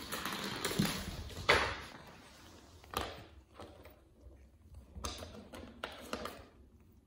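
Irregular knocks, taps and rustles on a laminate floor as a Persian cat scrambles about at play with a small plastic bottle. The loudest knock comes about a second and a half in, with another at about three seconds and a flurry of taps near the end.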